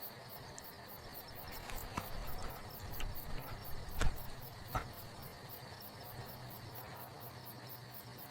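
Night-time crickets chirping in a fast, even rhythm over a low steady hum, with four short sharp pops or knocks spaced about a second apart in the middle.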